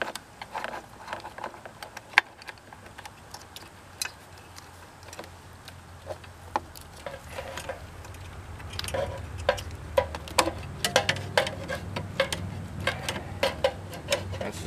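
Irregular clicks and taps of wires and plug connectors being handled and pushed through the generator's plastic housing. A low hum comes in about halfway.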